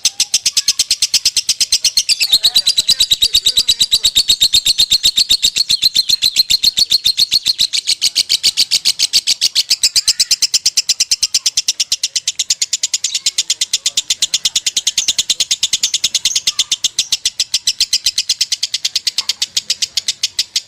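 Lovebird singing its long, unbroken 'konslet' trill, a fast and even pulsing chatter held without pause.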